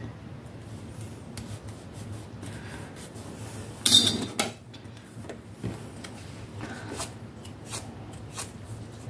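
Hands handling small die-cut paper pieces and a craft tool on a cutting mat: light rubbing and scraping with scattered small clicks, and one louder clatter about four seconds in as the tool is picked up.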